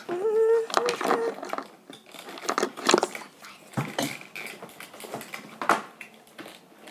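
A short, high, wavering whine lasting about a second at the start, then irregular knocks, clatters and rustles of toy packaging being handled.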